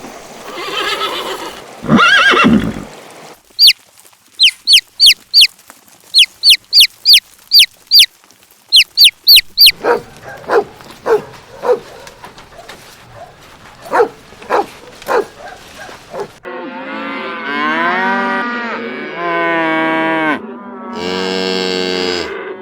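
A run of different animal calls, one after another. A horse neighs at the start. Then comes a series of short, high, downward-sweeping chirps about twice a second, then lower short calls. Last come several long, wavering cow moos over roughly the final six seconds.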